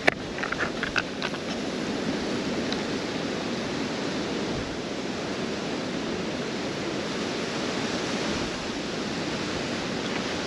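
Steady rushing of wind outdoors, an even hiss with a few light clicks near the start.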